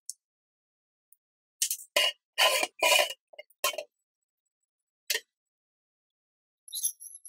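Steel tubes clanking against a steel workbench as they are handled and set down: a quick run of about six metal knocks, one more a second later, and a light clink near the end.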